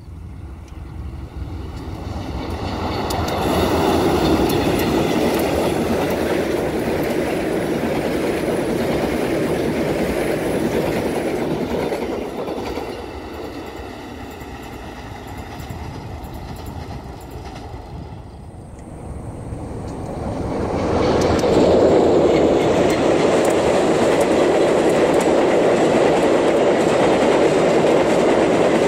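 Bandung Raya local passenger train rolling past on the track, its coaches' wheels running over the rails. The sound builds up, eases off in the middle, then builds up loud again about two-thirds of the way in.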